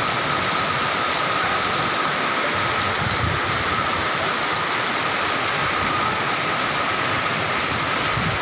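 Heavy rain and muddy floodwater rushing over a road make a steady, even noise, with a faint steady whine running through it. The flooding is what the speaker takes for a cloudburst.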